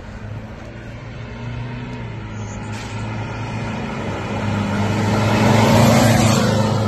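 Ford Ranger 2.2-litre four-cylinder turbodiesel with a downpipe and straight-pipe exhaust driving past. Its steady exhaust drone grows louder as it approaches, is loudest near the end, then begins to fade.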